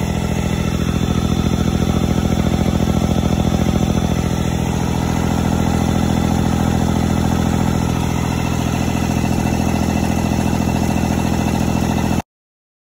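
Impact driver hammering steadily as it spins the crankshaft of an Evinrude E-TEC 90 outboard powerhead, with the cylinder head off, to check for abnormal cylinder noise. The test points to a worn crankshaft bearing, with cylinder one giving a faint crunching or scratching sound. The rapid hammering stops abruptly about twelve seconds in.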